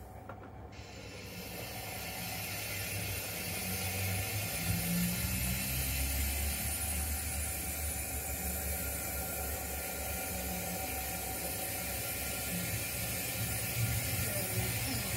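O gauge model tank locomotive and coaches running along the track: motor and wheels running steadily, growing louder over the first few seconds as the train draws closer.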